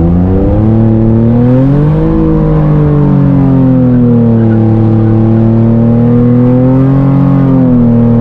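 Nissan 350Z's 3.5-litre V6 held at high revs during a drift. The pitch climbs over the first two seconds, eases a little and holds steady, then dips and picks up again near the end.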